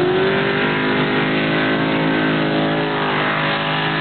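Formula Offroad hill-climb buggy's engine running hard as the car climbs a steep sand slope, wheels throwing up sand. A steady, loud engine note whose pitch sags slightly about three seconds in, then climbs again.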